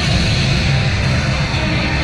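Loud rock music with guitar, running steadily.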